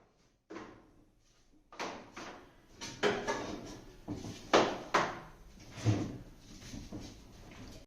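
Irregular knocks and clatter of hard washing-machine parts being handled and set down, about a dozen sharp hits with short rings, loudest about four and a half seconds in.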